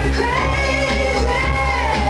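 A song playing loud, with a sung vocal holding long, bending notes over a heavy, steady bass.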